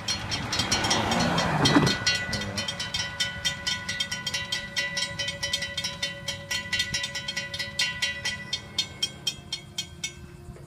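Railroad crossing warning bells ringing in a fast, even stream of strikes as the gates come down, then stopping about ten seconds in once the gates are down. A brief rushing noise swells and fades about a second in.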